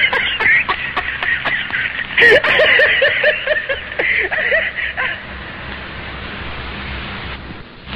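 Laughter in quick, repeated bursts that stops about five seconds in, leaving a quiet hiss.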